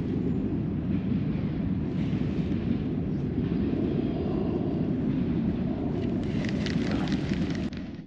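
Steady low rumble of wind buffeting the microphone, with faint rustling and crackling from about six seconds in before the sound cuts off.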